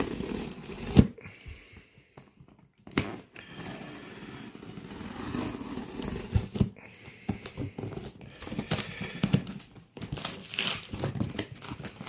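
Yellow utility knife blade drawn slowly through clear plastic packing tape along a cardboard box seam, the tape crinkling and scraping in uneven strokes, with a sharp knock about a second in.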